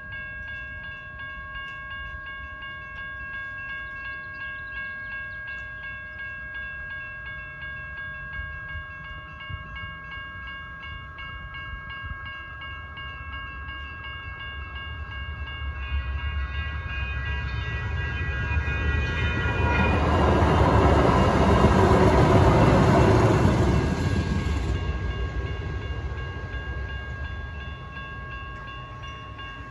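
Railroad crossing bells ringing steadily while a CAF-built Sacramento RT light-rail train passes, its rumble building from about halfway through, loudest about two-thirds of the way in, then fading away.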